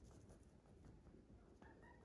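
Near silence: quiet room tone, with a faint, brief high-pitched tone about one and a half seconds in.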